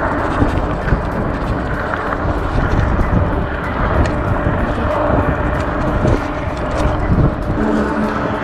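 Steady rushing wind and road noise from riding an ENGWE Engine Pro folding e-bike along a paved road, with a faint steady hum underneath.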